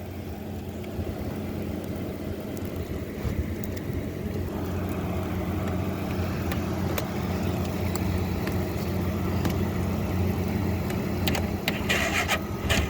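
Truck engine idling steadily while it jump-feeds the side-by-side through the jumper cables. Near the end there are a few short scraping, crunching noises.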